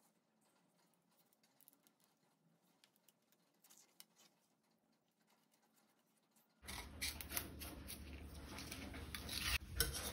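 Near silence at first. About six and a half seconds in, a serrated kitchen knife starts cutting along the thick midrib of a colocasia (taro) leaf on a plastic cutting board, in a run of small cutting and scraping clicks.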